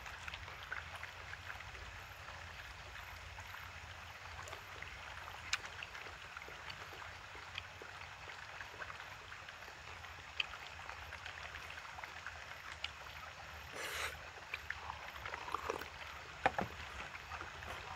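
Steady outdoor background hiss with scattered light clicks of chopsticks against a plastic takeaway tray. A brief louder rustle comes near the end.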